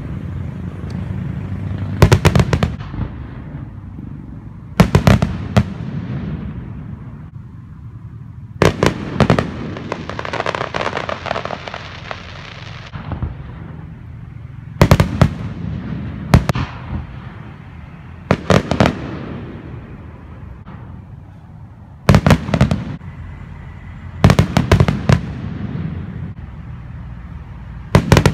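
Aerial firework shells bursting in the night sky: quick clusters of two to four sharp bangs every few seconds, each followed by a low rolling rumble. In the middle comes a few seconds of continuous crackle.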